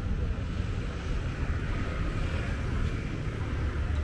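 Busy street ambience: steady road traffic noise from passing vehicles, with a continuous low rumble and no single event standing out.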